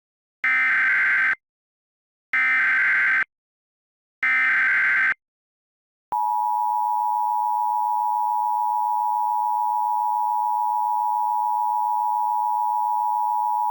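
Emergency Alert System signal. First come three short, raspy digital header bursts (SAME data), evenly spaced about two seconds apart. About six seconds in, the steady EAS attention tone starts and holds without change.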